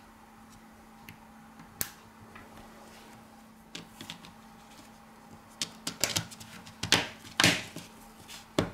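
Sharp plastic clicks and snaps as a Samsung Galaxy A40's plastic mid-frame is pressed down and its clips snap into place, with a closely spaced cluster of louder clicks in the second half and a single click about two seconds in.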